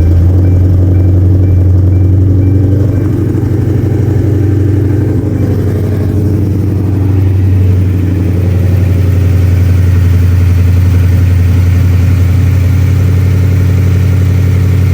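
Cammed Ford Crown Victoria V8 idling steadily just after being started, loud and low, with a slight dip in level about five to seven seconds in.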